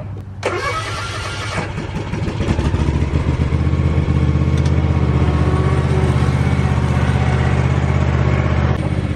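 Cub Cadet Ultima ZT1 zero-turn mower's engine catching about half a second in, then running. The throttle comes up about two seconds later and it runs steadily at high speed.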